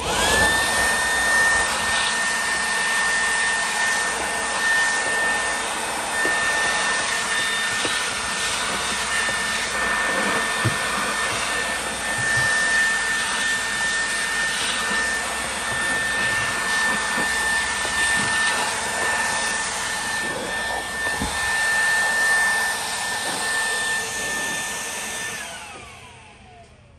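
Small electric blower switched on, running steadily with a high motor whine and rushing air as its nozzle blows dust out of the empty engine air filter box. It switches off near the end, and the whine falls as the motor spins down.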